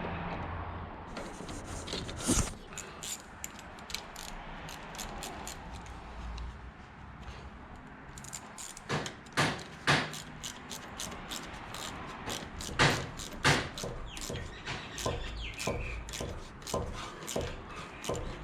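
Irregular metallic clicks and knocks of hand tools at work fitting a grease nipple and greasing a pin on a Bobcat skid-steer's attachment plate, with a few louder knocks scattered through.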